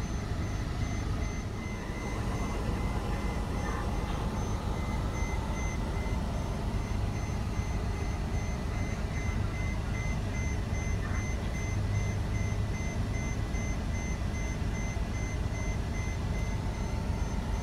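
Airport apron noise heard through terminal glass: a steady low rumble of ground equipment, with a continuous rapid high-pitched beeping from a vehicle's reversing alarm.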